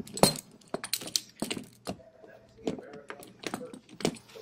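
Irregular metal clicks and knocks from a small gear puller being handled and fitted onto a wheelchair wheel, its hooks catching in the narrow rim openings; the sharpest click comes about a quarter second in.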